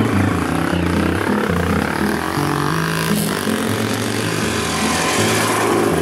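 Trail motorcycle (dirt bike) engines running as the riders pass on a dirt road, the engine note shifting up and down in pitch.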